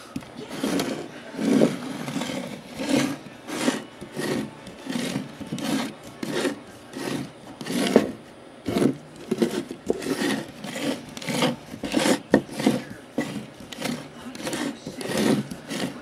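Plastic Lego puzzle box being handled and rubbed against a wooden tabletop, in short scraping strokes about two a second.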